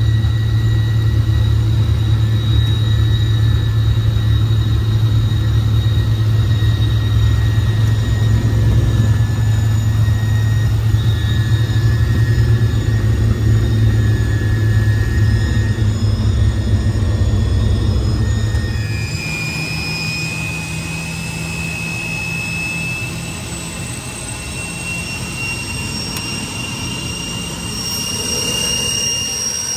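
Twin Turbomeca Marboré turbojets of a Morane-Saulnier MS.760 Paris, heard from inside the cockpit: a steady high whine over a heavy low rumble. About two-thirds of the way through, the rumble falls away, and the whine jumps higher and keeps rising slowly.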